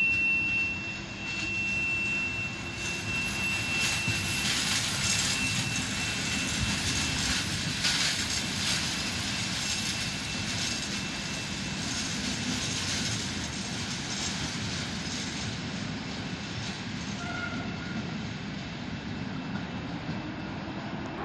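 IC Barbakan intercity passenger train pulling away from the platform, its coaches rolling off with a steady rumble and a dense clatter of wheels over the rails, slowly fading as it leaves. A thin steady high tone sounds through the first few seconds.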